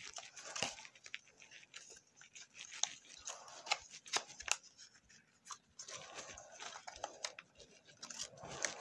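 Pokémon trading cards being handled and flipped through by hand: faint papery slides of card against card with scattered light clicks.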